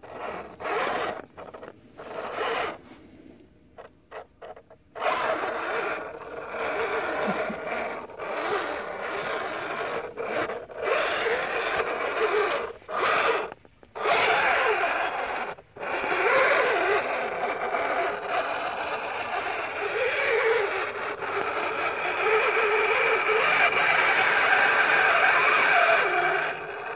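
Axial SCX10 RC crawler's electric motor and gearbox whining as it crawls over muddy rock, its pitch wavering with the throttle, with tyres scraping on dirt. It comes in short starts and stops at first, then runs almost without a break from about five seconds in.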